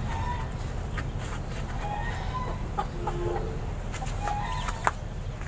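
Chickens clucking in short calls, with a few sharp metallic clicks from tools being handled, the loudest near the end.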